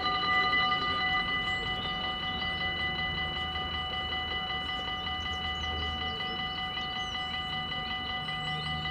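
Dutch railway level crossing's electronic warning bells ringing continuously while the red lights flash and the barriers are down. The ringing is a steady chord of several high tones, a little louder in the first second, over a low rumble.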